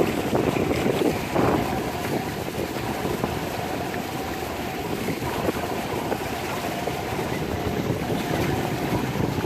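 Boat under way on open water: wind buffeting the microphone over water rushing past the hull, with a faint steady hum.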